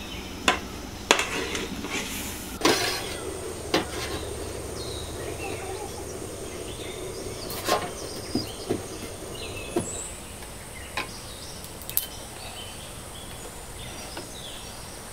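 Metal utensils clinking and knocking against metal cooking pots, a ladle stirring and a knife striking the pot rim, in about ten separate sharp strikes.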